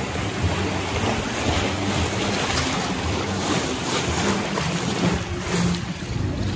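Rushing, churning water of a raft ride's concrete channel around a moving round raft, a steady loud wash with wind buffeting the microphone.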